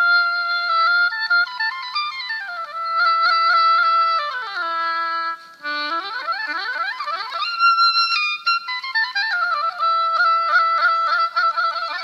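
Solo oboe improvising: held notes, a phrase stepping down to a low note, a short break for breath about five and a half seconds in, then quick rising runs of notes and more held notes with fast ornaments.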